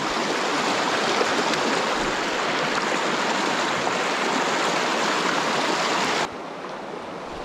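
Steady rush of a mountain river's flowing water. About six seconds in it drops suddenly to a quieter, duller rush.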